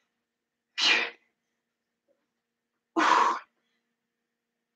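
A woman's two sharp, forceful exhales about two seconds apart. Each is a hard breath out with effort on one rep of a weighted crunch with a medicine ball.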